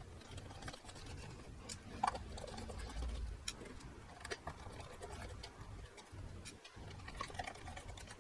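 Faint, scattered light clicks and taps, a few a second, of hands handling a graphics card and its heatsink.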